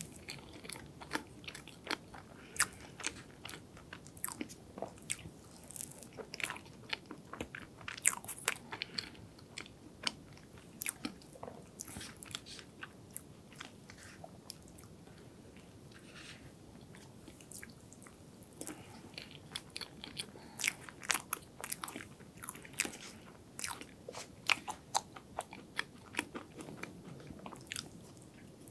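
Close-miked chewing of soft chocolate hazelnut cake: a stream of short, sharp wet mouth clicks and smacks, thinning out for a few seconds in the middle and picking up again at about nineteen seconds.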